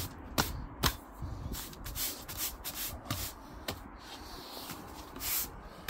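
Stiff-bristled push broom sweeping concrete paving slabs in short, irregular scraping strokes, a couple of sharper scrapes in the first second.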